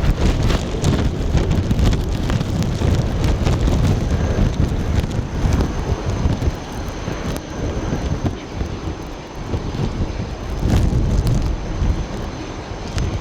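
Airbus A330 jet airliner's engines rumbling during its landing, heavily buffeted by strong wind on the microphone, which comes and goes in gusts.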